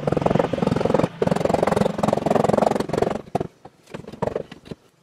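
Pneumatic sand rammer hammering rapidly as it packs foundry sand into a wooden molding flask. It runs in two bursts, with a short break about a second in, and stops after about three seconds. A few light knocks follow.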